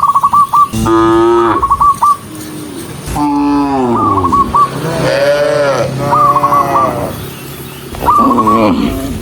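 Cattle mooing, one long call after another with some overlapping, each call rising and falling in pitch. The calls are joined by quick runs of short, high, repeated notes.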